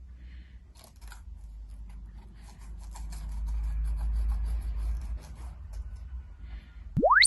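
Dry autumn leaves and paper being handled and pressed down, with light rustling, scraping and small taps. Near the end a short, loud whistle-like tone sweeps steeply upward from low to very high.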